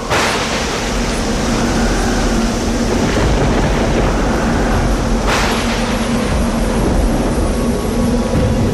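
Dramatic soundtrack effects: a loud, dense wash of noise with a low steady hum. A sudden whoosh hits at the start and another comes about five seconds in.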